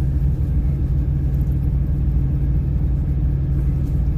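Steady low rumble of a truck's engine, heard from inside the cab.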